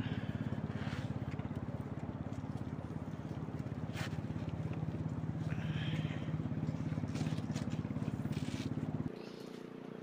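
An engine running steadily, with a fast, even pulse. About nine seconds in the sound changes abruptly to a quieter, higher hum.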